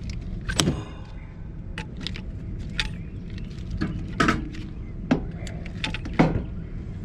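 Galvanized steel pipe and fittings clinking and knocking together as they are handled, about seven separate metallic clanks, the first, about half a second in, ringing briefly, over a steady low rumble.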